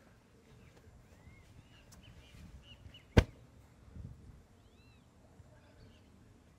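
Birds chirping in short rising-and-falling calls, with one sharp, loud crack about three seconds in and a duller thump a second later.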